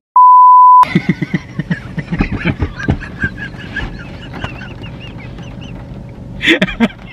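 A loud, steady high-pitched censor beep lasting under a second, followed by a man laughing hard in quick repeated bursts for several seconds.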